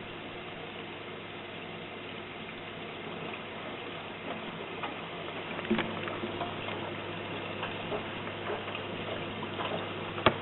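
Indesit Prime PWE7128S washing machine running, with water sloshing and splashing in the drum over a steady low hum. The water sounds grow louder about four seconds in, with scattered small clicks and one sharp knock near the end.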